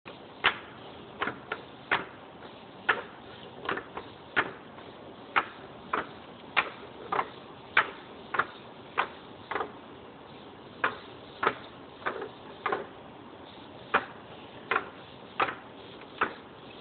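Hexapod robot's plastic feet tapping on a tabletop as it walks and turns: sharp single clicks about every half second, in an uneven rhythm, over a faint steady hiss.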